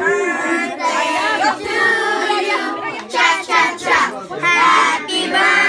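A group of children singing together, with talking mixed in.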